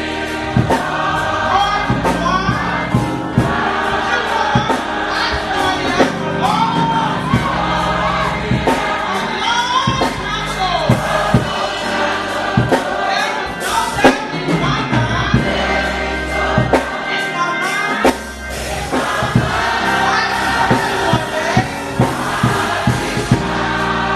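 Gospel choir singing with a band: bass and regular drum strokes under the voices.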